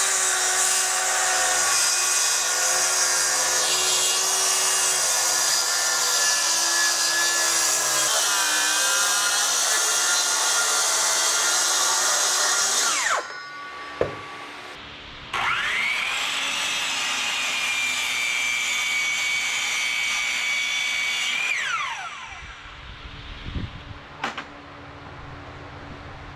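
Cordless circular saw cutting through 3/4 inch plywood: a long cut of about thirteen seconds, then the blade winds down with a falling whine. After a knock it spins up again with a rising whine for a second cut of about six seconds and winds down. A few light knocks of handling follow near the end.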